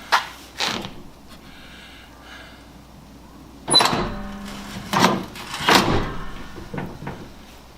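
A series of about six clunks and knocks, spaced irregularly, from hands working on a pickup's tailgate and bed hardware.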